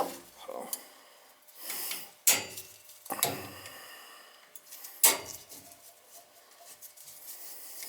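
Several sharp knocks and clanks, spaced a second or two apart, of tools and metal parts being handled while working on a boiler circulator pump.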